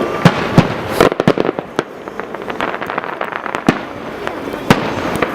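Aerial fireworks bursting: several sharp bangs, a rapid run of crackling pops about a second in, then single bangs spaced out through the rest.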